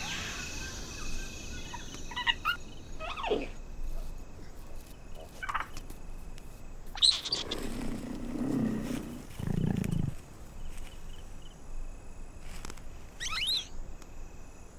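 Night forest ambience: scattered short animal and bird calls and chirps, with a low growl-like call about nine to ten seconds in.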